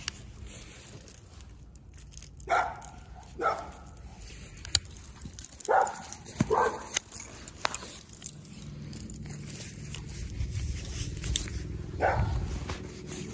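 A dog barking: five short single barks, spaced a second to several seconds apart, the last one well after the others.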